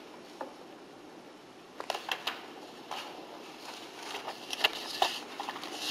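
Quiet room tone with a handful of small clicks and rustles of handling, scattered through the pause, with a short cluster about two seconds in.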